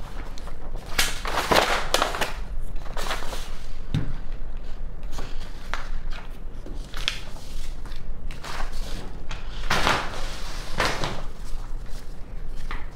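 Sheets of printed paper rustling as they are handled and turned over, in short irregular swishes, with one soft knock about four seconds in.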